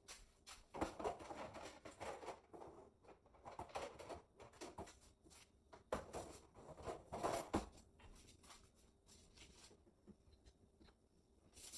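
Faint, irregular taps and clicks of eggs being cracked and the shells handled in a kitchen. Near the end a kitchen tap is turned on and water starts running into the sink.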